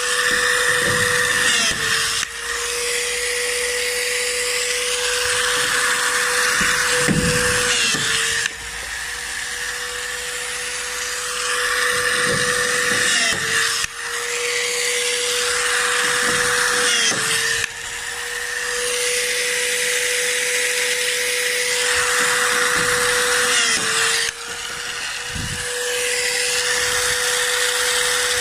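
Pneumatic riveting on an aluminium fuselage skin: a steady air-tool whine that dips in pitch every five or six seconds, with short bursts of rivet gun hammering and air hiss.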